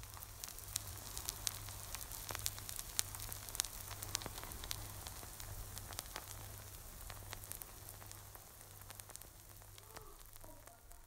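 Apple crumble fresh out of the oven, sizzling and crackling: a soft hiss full of fine pops and clicks over a low steady hum, slowly dying away.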